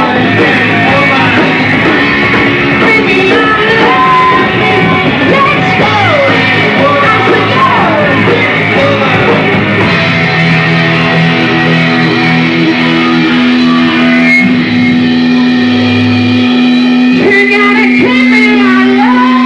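Five-piece heavy rock band playing live, loud and full, with two electric guitars, bass, drums and vocals. Bending melody lines ride over the band at first; about halfway through, it settles onto long sustained notes.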